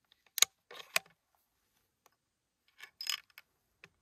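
Sharp metallic clicks and short rattles from a bolt-action rifle being worked and dry-fired. There is one group near the start and another about three seconds in.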